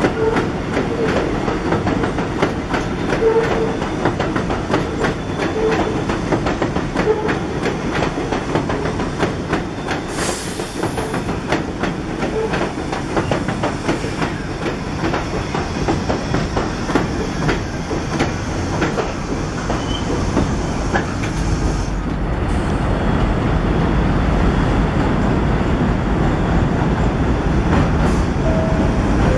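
New York City subway 1 train running along elevated track, its wheels clattering rapidly over the rail joints with a steady rumble. The rumble grows louder and deeper toward the end.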